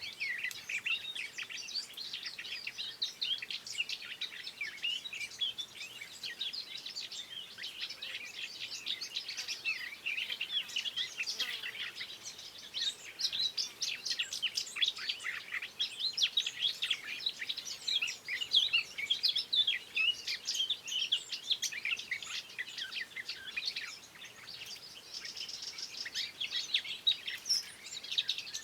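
Songbirds chirping and singing in a dense, continuous chorus of quick, high, overlapping chirps and trills.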